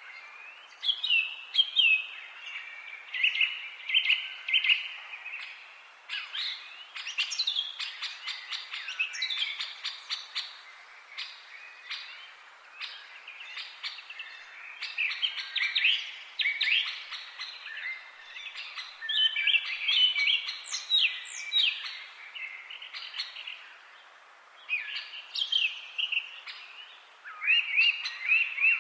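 Several woodland songbirds singing over one another: a dense, continuous chorus of short warbled phrases and quick chirps, over a faint steady background hiss.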